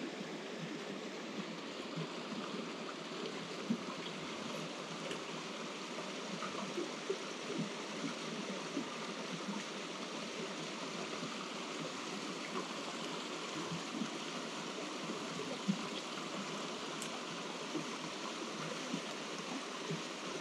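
A shallow mountain stream running over stones: a steady rush of water.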